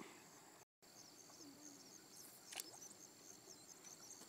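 Near silence with a faint, steady, high-pitched insect chorus, broken by a brief dropout about a second in.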